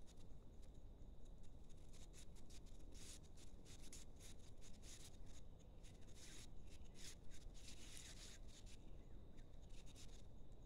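Faint, irregular scratching and rustling: crisp scrapes and clicks that come in clusters through the middle stretch.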